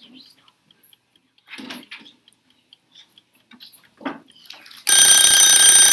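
A loud, steady electronic alarm tone starts suddenly about five seconds in, after a few faint rustles: a classroom timer going off as the one-minute work time runs out.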